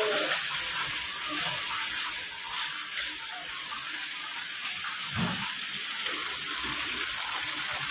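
Steady hiss of running rainwater flooding a hospital ward's tiled floor.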